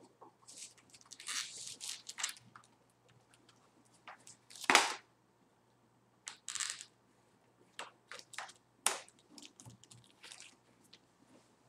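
Trading-card pack wrappers being torn open and crinkled in short, irregular bursts, the loudest about halfway through.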